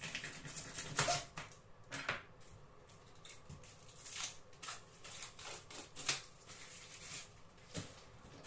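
Kitchen knife cutting a cucumber and vegetables on a cutting board: faint, irregular sharp taps and clicks with light handling clatter.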